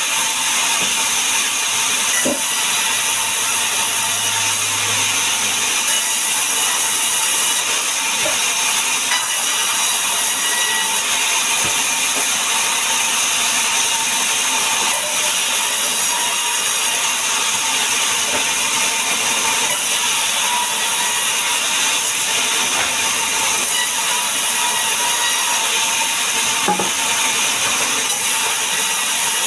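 Vertical band sawmill running and ripping a log lengthwise: a steady, bright hiss and whine of the band blade in the wood, with a few short knocks.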